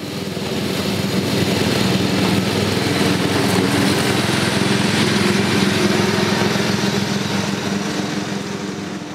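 Riding lawn mower's 12 hp single-cylinder Briggs & Stratton flathead engine running steadily as the mower drives across the yard, rising in over the first second and easing off slightly near the end.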